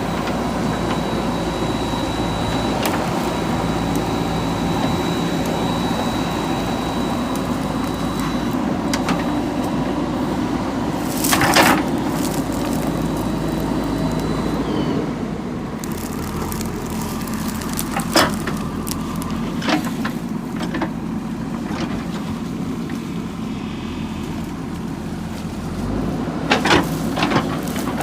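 JCB 3DX backhoe loader's diesel engine running steadily while working, with a thin high whine for about the first half and a few sharp knocks, the loudest a little before the middle. About halfway through the engine settles to a lower, quieter level.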